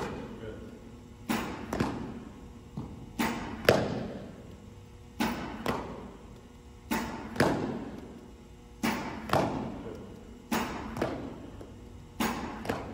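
Baseball pitching machine firing balls at a steady pace, about one every two seconds, each launch followed half a second later by a sharp pop of the ball landing in a fielder's leather glove. Fielding drill on short ground balls.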